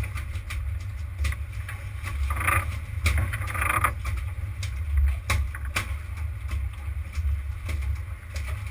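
Low, steady rumble of a sportfishing boat's engine, with scattered sharp knocks and clicks on board and two brief brighter noises about two and a half and three and a half seconds in.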